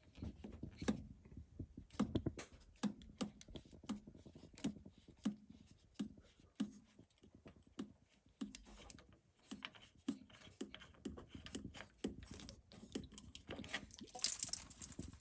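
Faint, irregular clicks and scrapes, about two a second, as the cold-water inlet filter cap under a Rheem tankless water heater is unscrewed, with a short hiss near the end.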